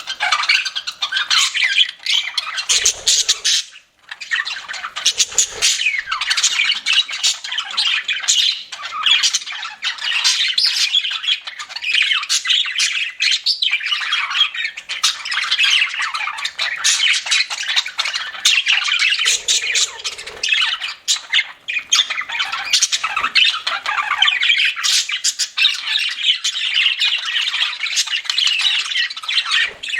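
Pet budgerigars chattering and squawking almost without pause, with many sharp clicks mixed in.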